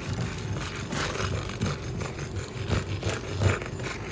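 Shingle-removal tool scraping and prying under asphalt roof shingles: a run of irregular gritty scrapes and rasps, each lasting a second or less.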